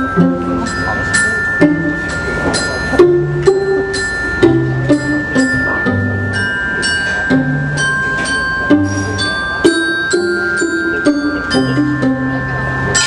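Live chamber ensemble playing an instrumental piece: mallet percussion strikes a run of short ringing notes over held high violin notes and low bowed cello notes.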